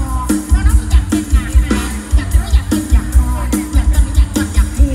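Isan mor lam music played loud through a stage sound system: a fast, heavy kick-drum beat under a bending melodic line.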